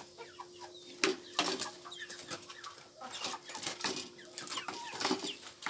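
Chickens clucking, with short chirps and scattered clicks throughout.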